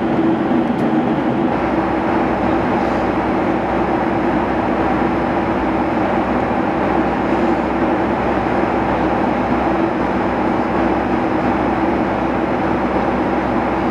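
Steady cabin noise inside a Boeing 757-256 airliner: a constant engine drone and rushing airflow with a low hum, unchanging throughout.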